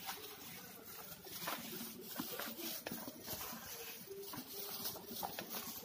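Hand mixing and pressing a still-crumbly flour-and-oil dough in a glass bowl: irregular soft taps, pats and clicks of fingers and dough against the glass.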